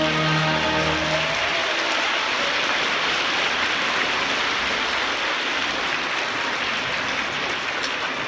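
The orchestra's final held chord cuts off about a second in. The audience breaks into steady applause, a dense even clapping that carries on.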